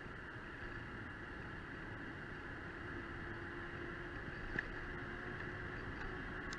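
Steady rolling noise of a Tongsheng TSDZ2 mid-drive electric mountain bike riding on a tarmac lane: an even rush of tyres and wind. A faint steady tone comes in for a second or two, and there is one sharp click about four and a half seconds in.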